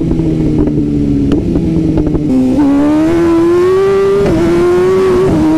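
Superbike engine through a loud exhaust, heard from the rider's seat: it holds a steady note for about two seconds, then pulls with rising pitch and upshifts twice, the pitch dropping at each shift. Wind rushes on the microphone underneath.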